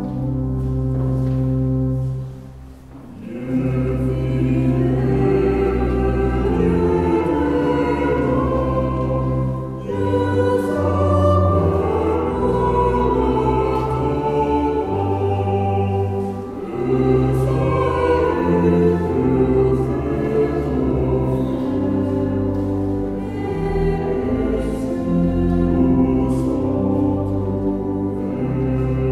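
Choir singing a French hymn with instrumental accompaniment. Sustained chords from the instrumental introduction end with a short dip about three seconds in, then the voices come in and sing on over the accompaniment.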